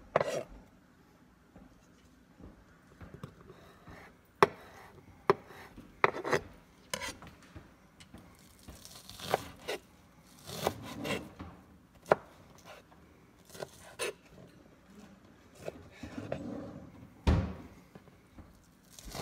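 Chef's knife chopping green onions on a cutting board: irregularly spaced sharp knocks of the blade hitting the board, with a few longer rubbing sounds in between.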